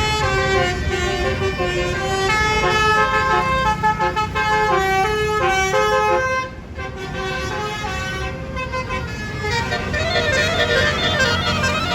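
Multi-note 'basuri' bus horn playing a tune note by note over the low rumble of a bus engine. It breaks off briefly about halfway, then comes back with a wavering, trilling melody.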